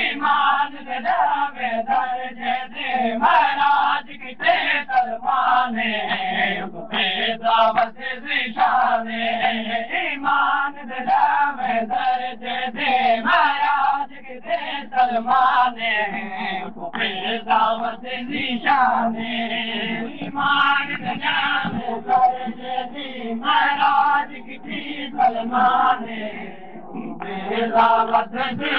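Men's voices chanting a noha, a Shia lament, in repeated rhythmic phrases.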